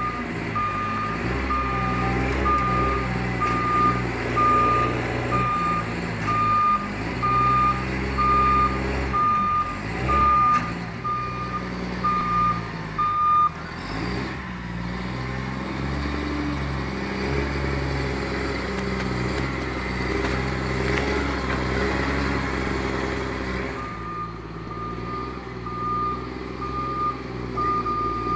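Prinoth Bison snow groomer's diesel engine running and changing with load as it manoeuvres, with its reversing alarm beeping about once a second for roughly the first half and again near the end.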